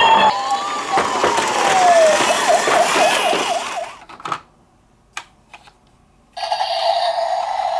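Police car siren: a wail sliding down in pitch, then a fast yelp warbling about four times a second, cutting off about four seconds in. After a short pause broken by a few clicks, a steady siren tone starts near the end.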